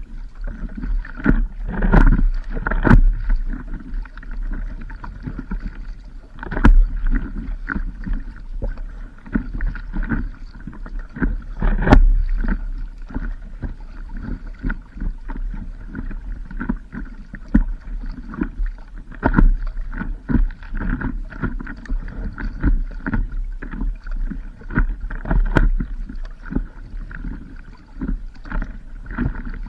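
Water sloshing and splashing around a stand-up paddleboard as it is paddled, with irregular surges and occasional sharp knocks and a constant low rumble underneath.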